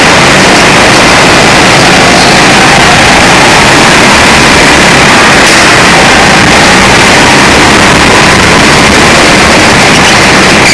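Go-kart engine running under load, heard from a camera mounted on the kart: loud and overdriven, mostly an even noisy wash with a faint engine note underneath.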